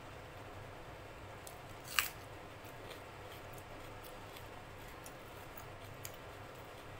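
Quiet eating sounds of a person eating rice and dal by hand: scattered faint mouth and finger clicks, with one sharp click about two seconds in, over a steady background hiss.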